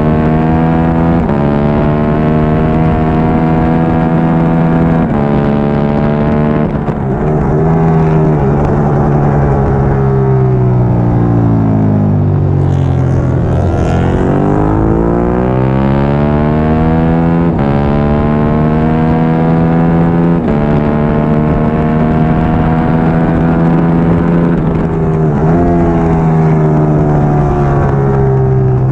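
Triumph Daytona 675R's three-cylinder engine at racing speed: its pitch climbs in quick steps through upshifts, drops steadily under hard braking about halfway, then climbs through the gears again.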